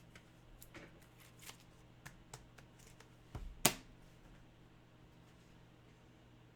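Trading cards being handled: faint rustles and light clicks in the first few seconds, with one sharp click a little past halfway, then only a low steady hum.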